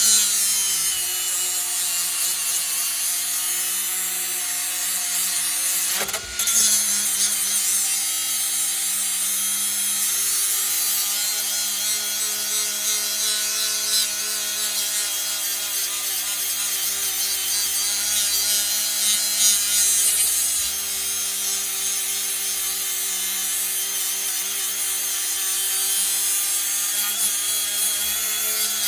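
Power grinder grinding metal off a brake caliper mounting bracket to make it fit, running steadily with a steady motor whine under a harsh grinding hiss. It stops briefly about six seconds in and starts again.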